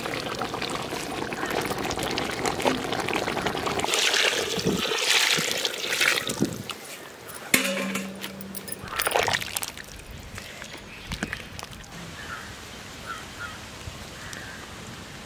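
Wet ground masala paste and liquid poured into a pot of simmering chicken curry, splashing and trickling, loudest a few seconds in. After the middle it dies down, with a few sharp clinks.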